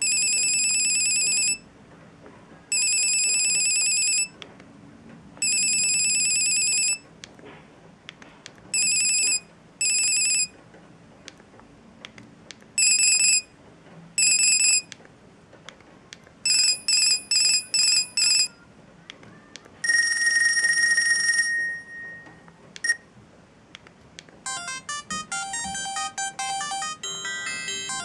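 Sharp GX29 mobile phone playing its preset electronic ringtones one after another through its small speaker: three long rings, then shorter double rings, a quick run of five pulses and a single lower tone. Near the end a polyphonic ringtone melody with many short notes begins.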